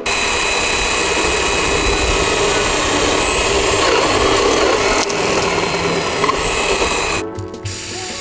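A woodworking power tool running steadily with a dense, loud noise, over background music; it cuts off about seven seconds in, leaving only the music.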